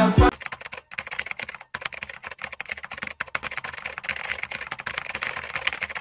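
Computer keyboard typing sound effect: a fast, irregular run of key clicks. The music cuts off a fraction of a second in, just before it.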